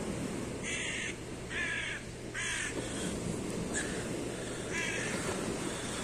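Young gull giving harsh, rasping squawks while held in hand: three in quick succession, then one more about two seconds later.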